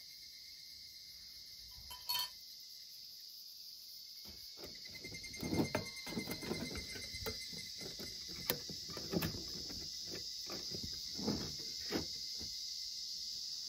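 Handling noise as a titanium hexagon wood stove is fitted around a can of solid fuel: rustling with light metal clinks and knocks from about four seconds in, the sharpest near the middle and end. A single click about two seconds in, and a steady high drone of insects throughout.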